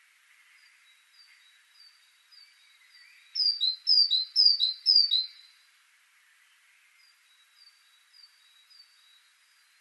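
Great tit singing: a loud run of four repeated two-note phrases, each dropping from a higher note to a lower one, a little before the middle. Fainter, evenly spaced high notes repeat before and after it.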